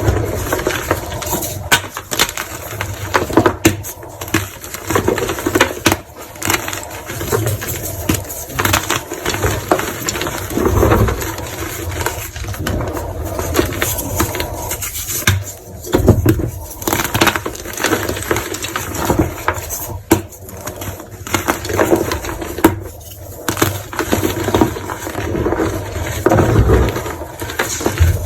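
Gym chalk crushed by hand, with irregular crunching and crumbling throughout.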